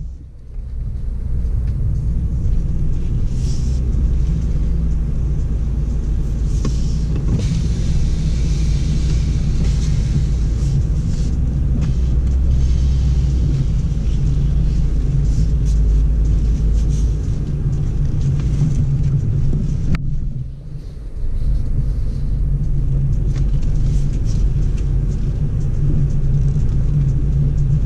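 Cabin sound of a BMW X4 M40i driving over a dirt trail: a steady low rumble from its turbocharged straight-six engine and tyres, dropping away briefly about twenty seconds in.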